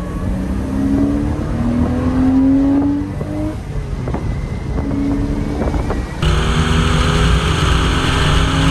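A 1999 Porsche Boxster's 2.5-litre naturally aspirated flat-six is pulling under acceleration. Its note climbs in pitch, breaks briefly for gear changes, and climbs again. About six seconds in, the sound switches abruptly to a louder, windier take, with the engine heard from outside the car.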